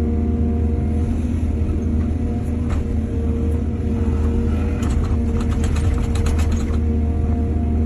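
Diesel excavator engine running steadily, with a rapid run of clanks and rattles about five seconds in that lasts under two seconds.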